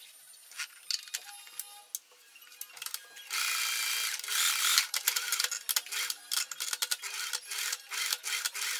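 A few light handling clicks, then about three seconds in an IKEA SY sewing machine starts running fast, its motor and needle mechanism making a dense, rapid clicking.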